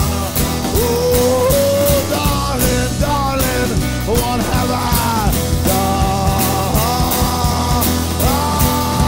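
A live rock band playing: strummed acoustic guitar, electric guitar, and drums with cymbals, with long held melody notes sliding into pitch over the top.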